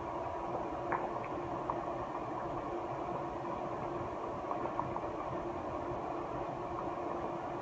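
Steady mechanical hum with a few faint, soft ticks.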